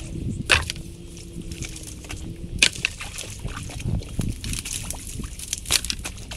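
Creek water sloshing while a beaver dam is pulled apart, with several sharp cracks and knocks of the dam's sticks.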